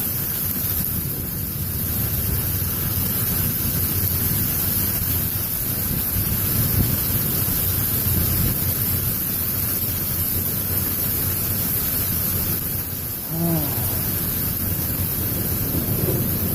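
Strong gusty storm wind buffeting the microphone: a steady rushing with a heavy low rumble, the cold gusts of an arriving severe thunderstorm.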